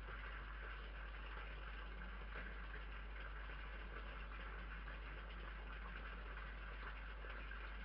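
Steady low hum and even hiss from a night-vision security camera's microphone, with no distinct sounds standing out.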